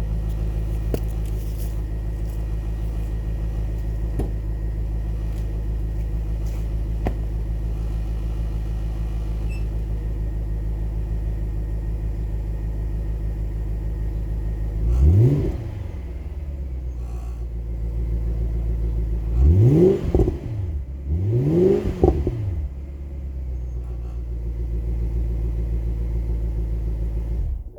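BMW E60 550i's 4.8-litre V8 idling steadily on its stock exhaust, blipped three times: once about halfway through, then twice in quick succession a few seconds later. Each time the revs rise and drop back to idle.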